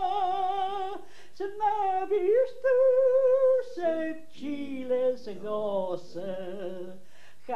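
An elderly woman singing unaccompanied in Scottish Gaelic, holding long notes with vibrato and sliding between pitches, with brief pauses for breath.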